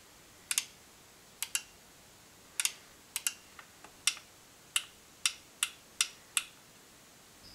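Small limit microswitches in a Mettler PL3000 electronic scale clicking as its on bar is worked: about fourteen sharp clicks, the first few in quick pairs, the later ones single and about half a second apart.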